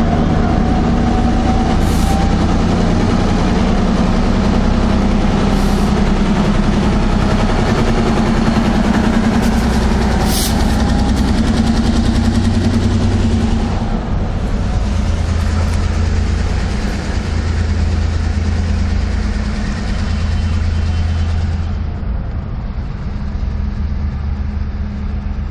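Diesel locomotive's engine running loud as it rolls past close by, with a few sharp clanks from the running gear early on, then getting quieter in the last few seconds as it moves off down the track.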